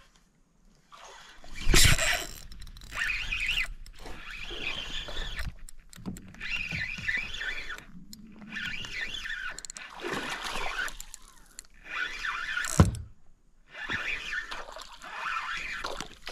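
Fishing reel cranked in repeated short bursts, a whirring rattle with brief pauses, as a hooked bass is reeled up to the boat. A loud sharp knock comes about two seconds in and another about thirteen seconds in.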